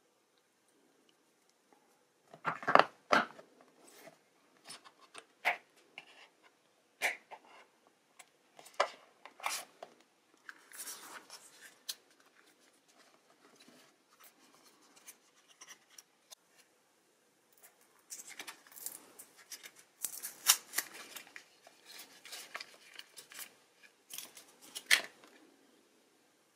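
Hands handling phone packaging: a run of sharp clicks and knocks as the plastic wall charger and the cardboard box are handled, then dense crinkling and rustling of paper wrapping as the charging cable is unpacked, with one more sharp click near the end.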